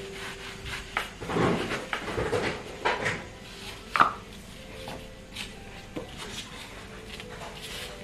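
A round plastic lid pressed and twisted through rolled dough onto a plastic cutting board to cut a circle: scraping and rubbing, with scattered light taps and a sharper tap about four seconds in.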